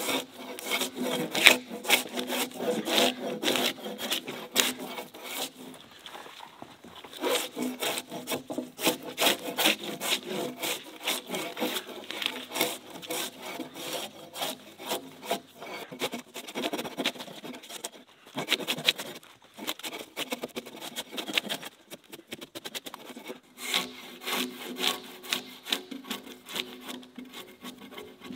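A hand saw cutting through a log in steady back-and-forth strokes, with a couple of short pauses. Near the end come the scraping strokes of a drawknife peeling bark off a log.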